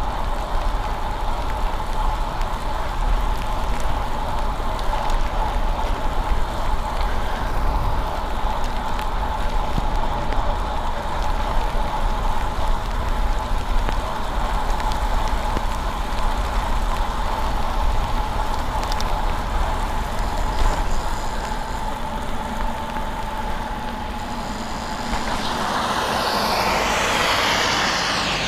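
Wind rumble and wet-road noise from a bicycle ride in the rain, with a steady hum. About 25 seconds in, a car passes on the wet road, its tyres hissing through the spray, and fades near the end.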